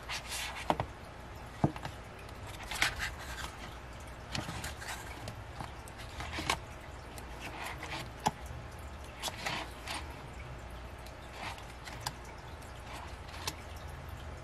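Handling a K-pop album's photobook and inserts: irregular paper rustles of pages being turned, with a few sharp light taps and clicks of the cards and booklet against a surface.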